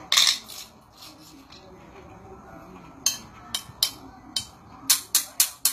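Broken jade pieces clinking against one another as they are picked over by hand: a short clatter just after the start, then separate sharp clicks that come faster near the end, about four a second.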